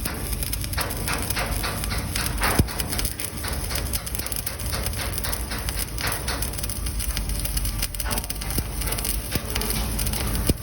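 Electric arc welding in the vertical (3G) position: the steady crackle of the arc, with a sharper pop about two and a half seconds in.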